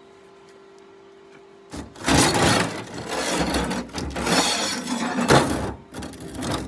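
MIG welding arc crackling on steel, starting about two seconds in and running in loud, uneven stretches with two short breaks. A steady low hum is heard before the arc strikes.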